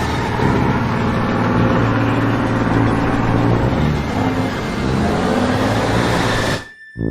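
An engine running loudly under a noisy rumble, its low pitch wavering a little, then cutting off suddenly near the end.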